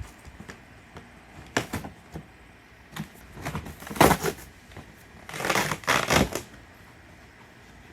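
Bike packaging being handled during unboxing: a string of sharp clicks and knocks, the loudest about four seconds in, then rustling of packing material for about a second near the end.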